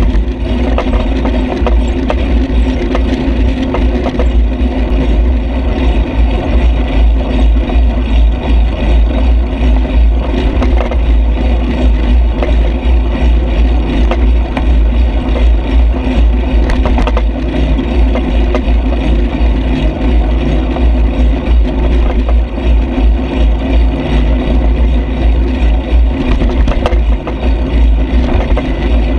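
Ride noise from a handlebar-mounted action camera on a moving bicycle: a steady, heavy wind rumble with constant small rattles and clicks from the mount over the road surface, and motor traffic underneath.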